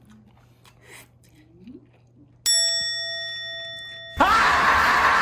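A chime sound effect: a single ding, several high ringing tones struck at once about halfway through, fading slowly. Near the end a loud, noisy rush with quick rising glides cuts in over it.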